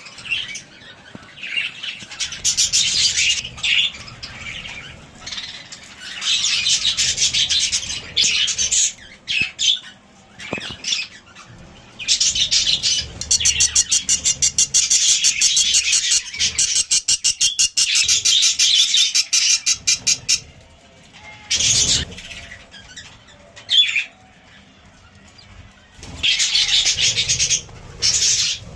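Budgerigar chirping and warbling in long runs of fast, chattering song, broken by short pauses.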